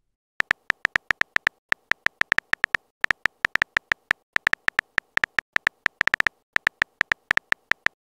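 Typing sound effect: a run of short, sharp electronic blips at an uneven pace of a few per second, as text is typed out, with two brief pauses.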